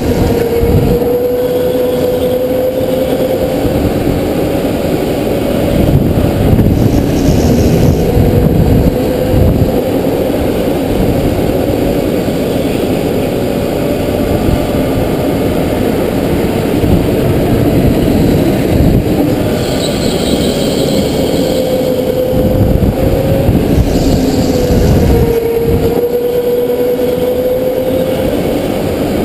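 Go-kart running at speed, heard onboard: its motor note dips as it slows for corners and climbs again as it accelerates out, over a steady low rumble.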